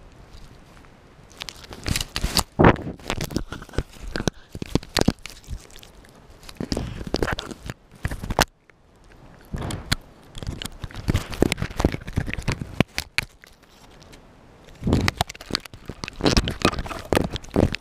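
Fox chewing on a GoPro camera held in its jaws, heard from the camera itself: teeth crunching, scraping and clicking on the plastic housing in crackling bursts with short pauses.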